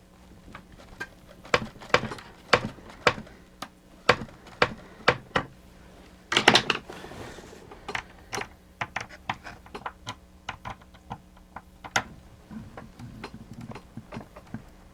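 Irregular small clicks and knocks of parts of a plastic mechanical animated display being handled and worked loose, with a louder clatter about six and a half seconds in.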